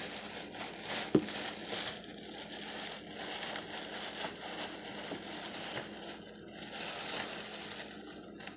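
Rustling and crackling handling noise as the phone rubs against hair, with one sharp knock about a second in, over a steady low hum.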